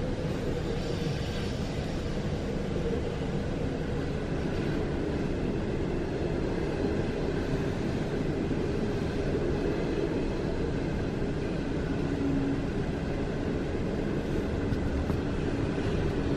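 A freight train's wagons passing close by: a steady rumble and rattle of steel wheels on the rails, heard from inside a stationary passenger carriage.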